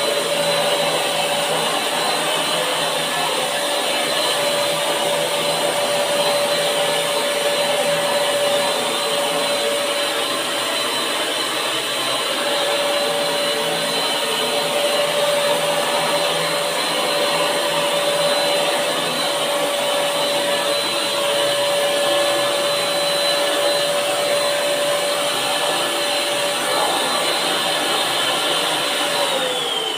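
Buildskill BPS1100 650 W HVLP paint sprayer's turbine blower running steadily with a whine while spraying paint, then switched off about a second before the end, its pitch falling as it winds down.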